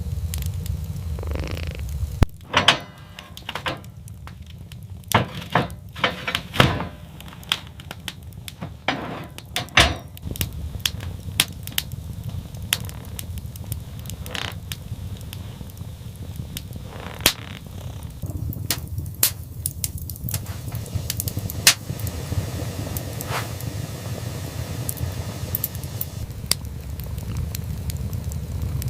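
Wood fire crackling, with scattered sharp pops and snaps over a steady low rumble.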